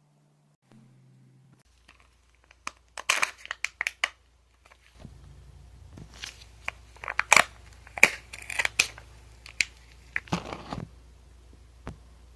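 Plastic toy packaging being crinkled and torn open by hand: crackling and tearing in short clusters, a first spell about three seconds in and a longer one from about five to eleven seconds.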